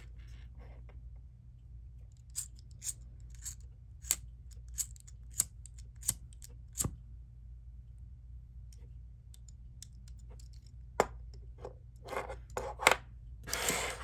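A handheld lighter clicked over and over, about eight sharp clicks a little over half a second apart. Near the end come a few more clicks and a short rustle of handling.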